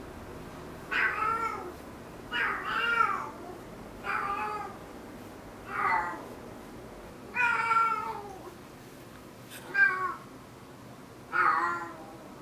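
A cat with hind-limb paralysis gives a series of about seven short, pitched meow-like calls, roughly one every second and a half. The owner calls it a strange sound and hears it most after the cat wakes up, without knowing its cause.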